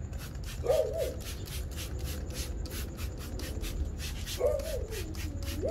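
Trigger spray bottle pumped rapidly, a quick run of short hissing sprays of acid wheel cleaner onto a wheel, about four a second. A dog whines briefly a few times.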